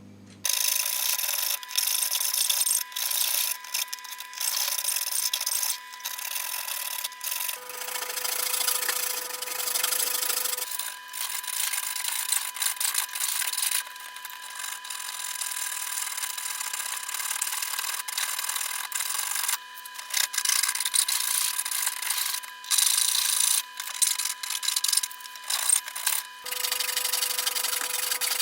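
Repeated hand strokes of an abrasive tool, a file or sandpaper, rubbing and scraping on the workpiece in irregular runs with short pauses.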